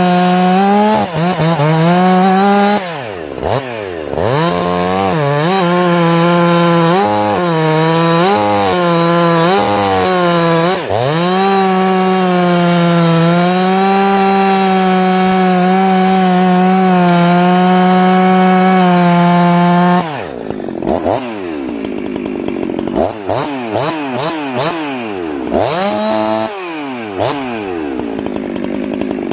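Loud ported two-stroke chainsaw with an opened-up muffler cutting a log at full throttle. Its engine note holds steady under load, cleaned up and pulling hard, with a few brief dips. About two-thirds through it comes out of the cut and revs up and down freely. Unloaded at top RPM it four-strokes, the sign that the high-speed carburetor jet is set slightly rich.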